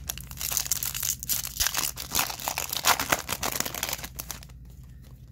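Foil wrapper of a Topps Chrome baseball card pack crinkling and tearing as it is handled and ripped open. The crackling dies down about four and a half seconds in.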